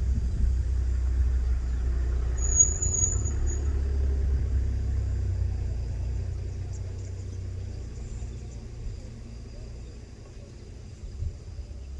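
A motor vehicle's engine idling as a steady low rumble that fades away over the last few seconds.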